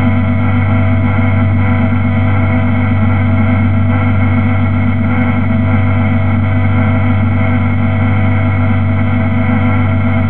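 BMW E30's engine idling steadily at a constant pitch, heard from inside the cabin.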